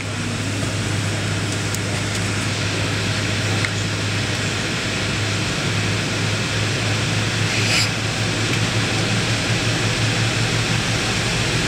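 Steady airliner cabin noise on the ground before take-off: the jet engines at idle and the cabin air system, a constant low hum under an even hiss, with a short brief hiss about eight seconds in.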